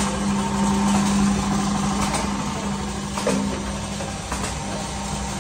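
Workshop machinery driven by an electric motor, running with a steady hum that drops away about two seconds in. A few faint clicks and knocks are heard.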